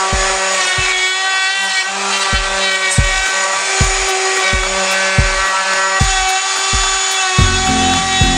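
Festool plunge router running with a steady whine as it mills the face of an oak slab, over background music with a steady beat; a bass line comes into the music near the end.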